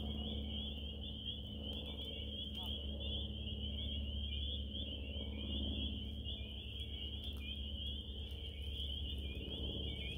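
Frog chorus: many high calls blend into one steady, fluttering high-pitched sound, over a low rumble.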